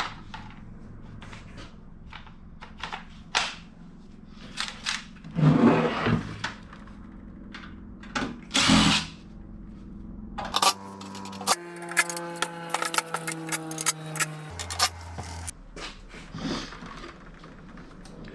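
Metal parts of a sandwich press knocking and clanking as they are handled. About ten seconds in, a power drill runs for about five seconds to back out the screws holding the bottom plate, its pitch changing in steps.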